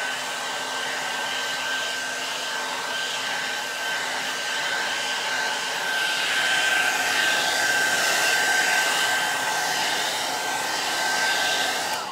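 Hand-held hair dryer blowing hot air to dry fresh white acrylic paint on an MDF piece: a steady motor whine over a rushing airflow hiss, cut off right at the end.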